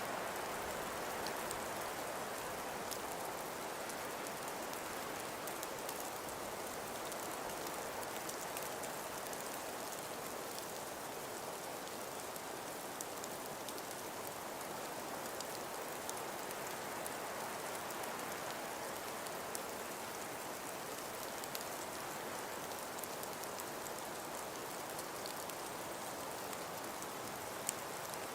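Steady, even hiss of wind-blown snow, with faint scattered ticks.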